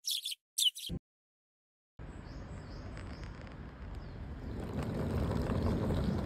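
Birds chirping in a few quick, high calls, then a sudden cut to silence. About two seconds in, a steady outdoor rumble of ambient noise comes in and grows louder.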